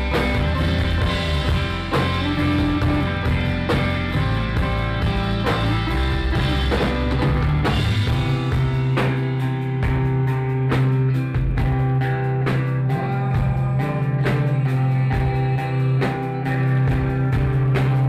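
A live rock band playing loudly: electric guitars ringing over bass and drums, recorded on a phone in the crowd. A heavy sustained bass note takes over the low end about halfway through.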